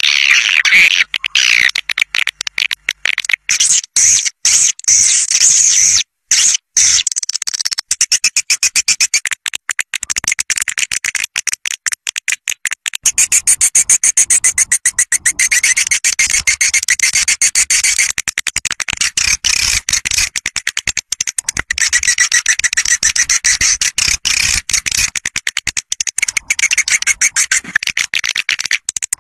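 Swiftlet caller recording, the kind played to lure swiftlets into nesting houses: a flock of swiftlets in a dense, fast, high-pitched twittering chatter, broken briefly about six seconds in.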